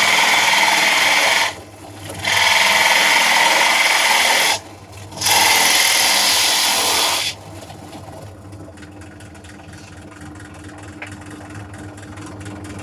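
Bench drill press boring into pallet wood with a 40 mm Forstner bit, in three loud cutting passes broken by short pauses as the bit is lifted. About seven seconds in the cutting stops and the drill press motor runs on freely with a quieter, steady hum.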